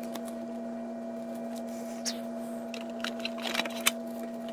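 Trading cards and a plastic card case being handled on a playmat: a few light clicks and rustles, bunched about three to four seconds in, over a steady hum.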